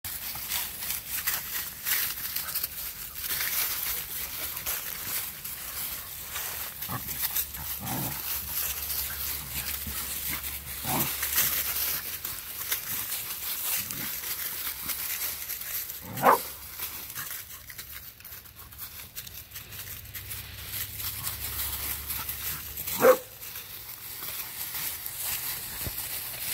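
Dogs playing with a sheep: about half a dozen short yips and barks, the two loudest in the second half, over a constant rustle and crunch of dry leaves underfoot.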